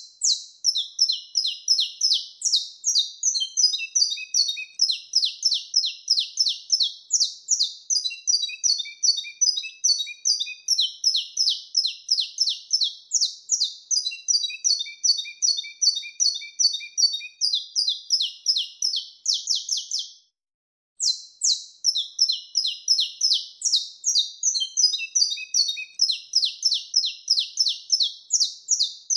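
Saffron finch (canário-da-terra) singing its wild-type 'mateiro' song: a long, fast run of sharp, high chirps, about four or five a second. The song breaks off briefly about twenty seconds in, then starts again.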